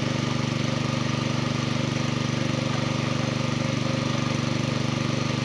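A small engine running steadily at a constant speed: a low hum with a fast, even pulse.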